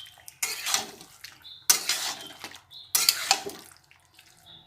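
A cooking spoon stirring and scraping chicken and spice paste around a pan, three strokes about a second apart, as the masala is sautéed (kosha) over a low flame.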